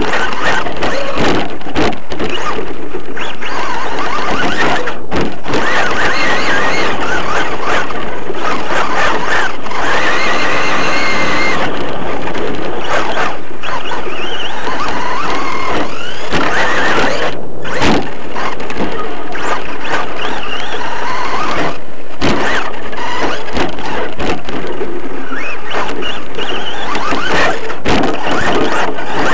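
Onboard sound of an RC off-road car racing over a dirt track. A whine rises and falls with the throttle, over constant rattling and knocks from the bumps, loud enough to overload the microphone.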